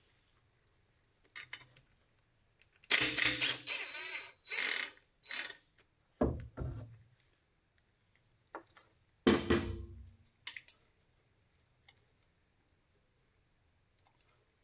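Intermittent clatter of tools and metal parts being worked on an excavator: a noisy burst of rattling about three seconds in, then a heavy low thud about six seconds in and a louder one about nine seconds in, with a few small clicks after.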